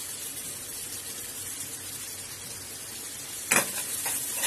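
Masala and coconut milk sizzling steadily in a metal karahi on the stove, then a metal spoon knocks and scrapes against the pan about three and a half seconds in as stirring starts.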